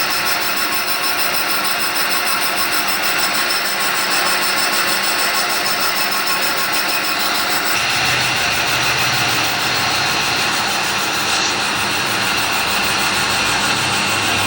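Manual lathe running steadily while turning a brake disc rotor, a constant machine noise with several steady tones. A lower rumble joins about eight seconds in.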